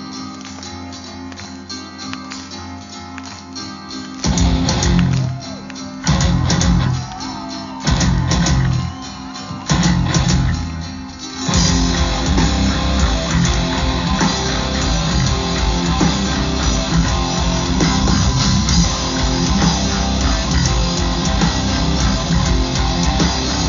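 Live folk metal band playing on an amplified stage: a quieter guitar passage for about four seconds, then the full band comes in with four loud stop-start blasts, and from about twelve seconds it plays on without a break.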